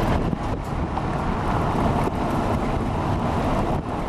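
Steady low rumble and rushing noise inside a car, with wind buffeting the microphone; it dips briefly near the end.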